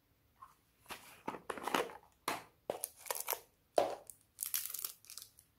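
Slime being squeezed and worked by hand, making a series of crackly, crunchy squishes.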